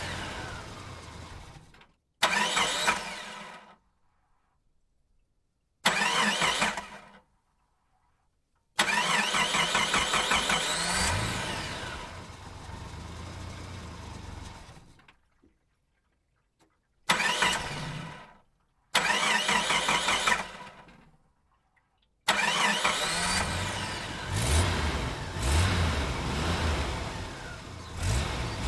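A series of separate vehicle engine starts, each one beginning suddenly and then dying away or cutting off into silence. The longest run, in the middle, includes rising revs, and the last engine catches and keeps running to the end.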